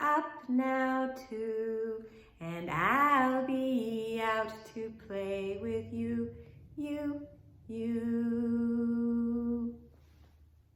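A woman singing a slow children's welcome song, with a rising swoop about three seconds in and a long held final note near the end.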